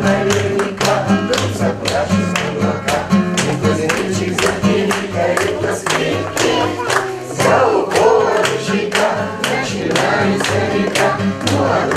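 Acoustic guitar strummed while a group of voices sings along in chorus, with hand claps keeping time.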